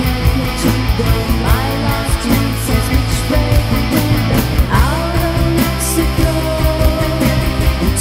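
Rock song played by a band: electric guitars, bass and drums, with a woman singing.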